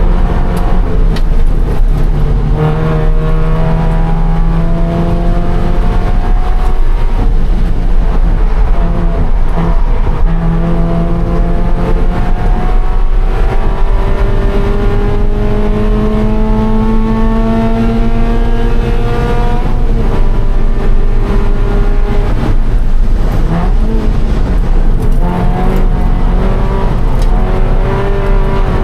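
2013 Scion FR-S's flat-four engine, running on E85, under hard acceleration on track: its pitch climbs in long rises and drops back at several gear changes.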